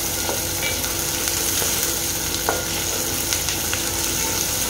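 Chopped onions sizzling steadily in hot oil in a metal pot while being stirred with a wooden spatula, with a few light taps of the spatula against the pot.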